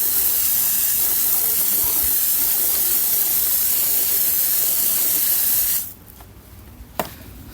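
Water spraying in a steady hiss onto freshly milled maple slabs, wetting them to bring out the grain. The spray cuts off abruptly about six seconds in, and a single sharp click follows about a second later.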